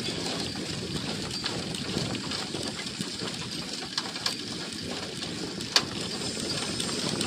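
Motorcycle engine of a passenger tricycle running steadily as it moves, with road and wind noise; a single sharp knock about six seconds in.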